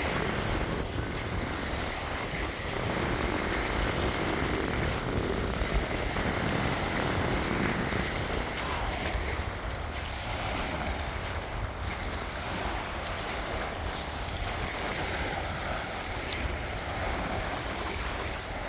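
Wind buffeting the microphone over the steady wash of sea waves on the shore.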